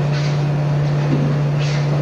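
A steady low hum with hiss, unbroken throughout, with faint brief swishes about a quarter second in and again near the end.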